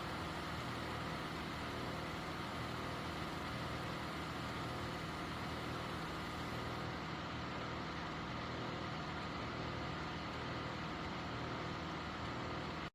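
Portable mini cool-mist USB humidifier running steadily in continuous misting mode: a constant low hum and hiss with a thin, steady high whine.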